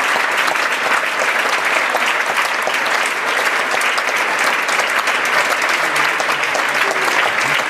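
Large theatre audience applauding steadily: a dense, even clatter of many hands clapping.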